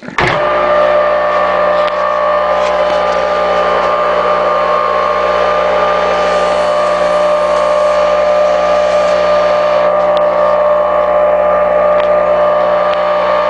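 Craftsman flex drive table saw motor, a 1-1/16 HP capacitor-start induction motor running on its own, switched on and spinning up in a fraction of a second. It then runs at full speed with a steady, even hum and whine, which the seller presents as the motor running nicely.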